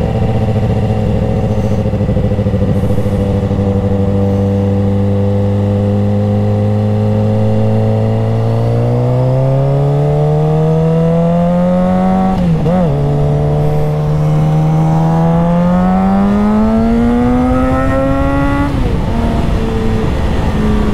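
Suzuki GSX-R sportbike engine running at a steady cruise, then rising in pitch as it accelerates about eight seconds in. A quick dip in pitch about twelve seconds in is an upshift, after which the revs climb again until they drop back to a steady lower note near the end, with wind rush underneath.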